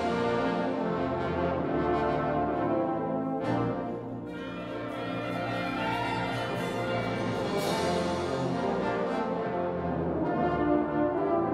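Wind orchestra playing a sustained, brass-heavy chordal passage with French horns and trombones prominent, punctuated by a few struck percussion accents that ring on. The music drops back about four seconds in and swells again near the end.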